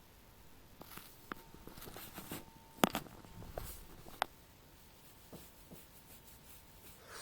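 A faint, steady, unexplained hum, heard through a phone's microphone. Scattered clicks and rustling from handling the phone fall in the middle, with the sharpest click about three seconds in.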